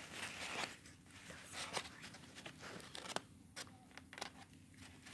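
Crumpled aluminium foil crinkling as a small dog eats potato wedges off it, with its mouth making soft chewing and licking clicks: an uneven string of crackles and sharp little clicks.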